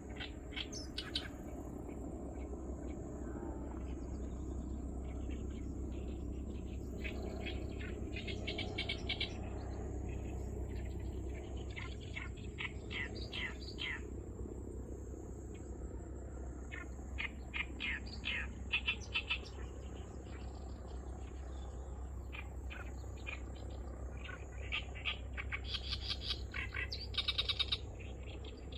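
Oriental reed warbler singing an unusual song of rapid repeated notes, given in four bouts separated by pauses of a few seconds. A steady low hum runs underneath.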